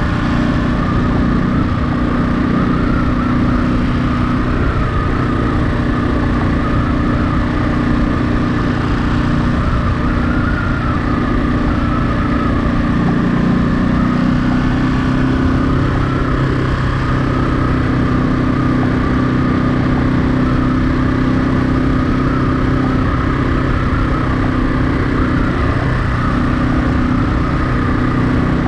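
Ducati Monster 937's 937 cc L-twin engine running steadily while being ridden, its pitch shifting a little partway through, over a constant rush of low rumbling noise.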